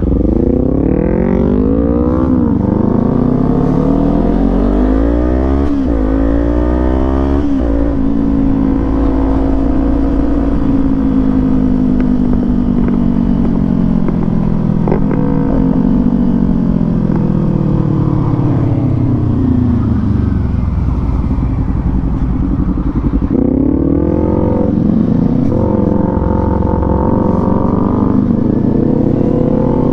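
Motorcycle engine accelerating hard through three quick upshifts in the first eight seconds, each one a climbing whine that drops at the shift, then running at steadier revs that slowly rise and sag. About 23 seconds in it revs up again through the gears.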